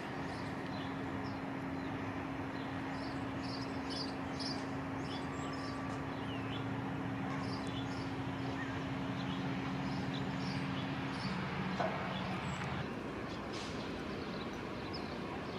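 Outdoor ambience: small birds chirping over a steady low mechanical hum, which drops away shortly before the end.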